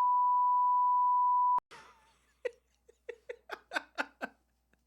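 A censor bleep: a steady 1 kHz beep tone that cuts off sharply about a second and a half in. A man's quiet laughter follows in short pulses that come faster toward the end.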